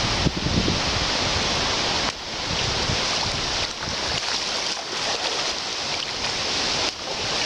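Steady rush of moving water, with wind buffeting the microphone in uneven low rumbles.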